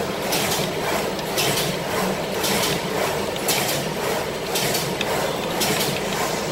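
High-speed paper straw making machine running: a steady mechanical hum with a hissing, rattling stroke repeating about twice a second.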